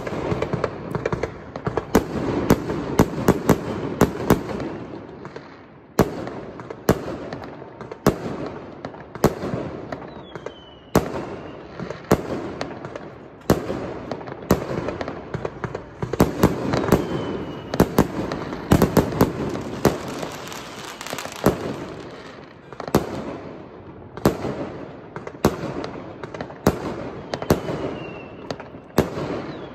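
Many fireworks going off at once: a steady stream of sharp bangs from aerial shells and rockets bursting overhead and across the neighbourhood, over a constant background of more distant bangs and crackle. A few short falling whistles come through now and then.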